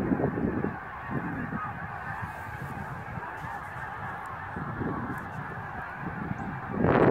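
A large flock of Canada geese honking in flight, a continuous dense chorus of many overlapping calls. Gusts of wind buffet the microphone, loudest just before the end.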